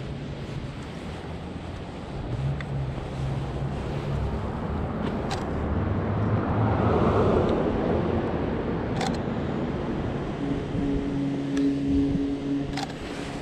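City street traffic: a car passes, swelling and fading about six to eight seconds in, over a steady low engine hum. A few sharp clicks stand out, about three in all.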